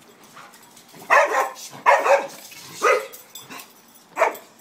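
An agitated dog barking four times, loud, short barks about a second apart.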